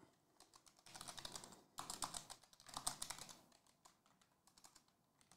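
Typing on a computer keyboard: three quick runs of key clicks from about one to three and a half seconds in, then a few single taps.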